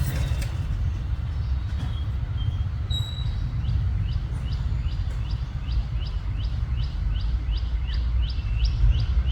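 A bird chirping over and over in short high notes, about two a second, starting a third of the way in after a few scattered single notes, over a steady low rumble of background noise.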